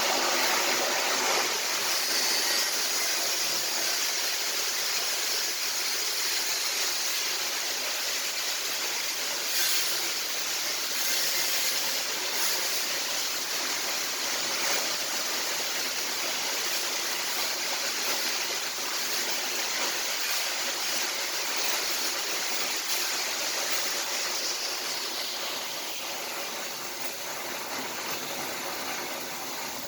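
Welding arc burning in a long steady run: a continuous crackling hiss that tails off over the last few seconds as the bead is finished.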